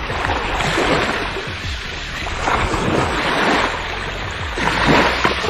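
Small sea waves washing against a rocky shore, coming in surges, with wind rumbling on the microphone.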